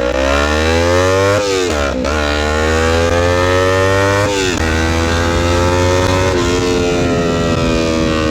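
Straight-piped Kawasaki Ninja 300 parallel-twin engine, its muffler removed, riding and pulling through the gears. The pitch climbs and drops sharply at three upshifts in the first half, then holds a nearly steady pitch that eases off near the end. The exhaust is very loud: way too loud, by the rider's own word.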